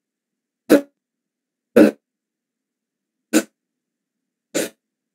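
A person coughing over a video call: four short coughs spaced about a second or so apart, with the line cut to silence between them.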